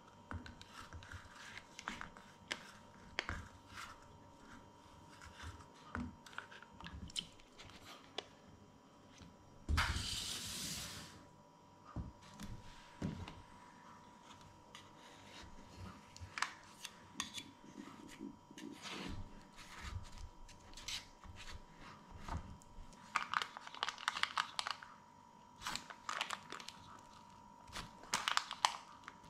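Parchment paper strips being peeled and torn away from the sides of a baked cheesecake in a metal cake pan: scattered rustling, crinkling and tearing, with a louder hiss-like rush about ten seconds in. A faint steady high hum runs underneath.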